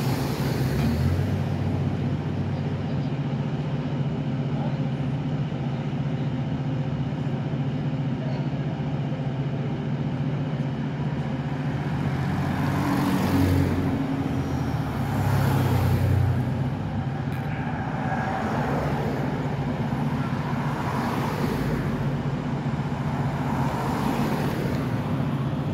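Steady low drone of an idling engine, with several cars driving past close by.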